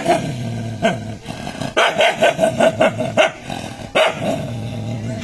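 A dog barking and growling at its reflection in a mirror. Single barks come at the start and about a second in, then a quick run of about six barks, then one more, with growling held between them.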